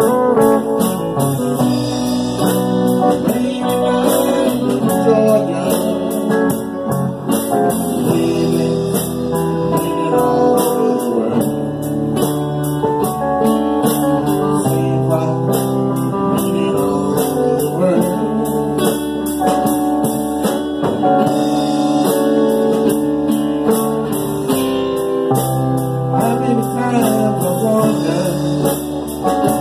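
Live band music with electric and acoustic guitars playing a slow, bluesy song.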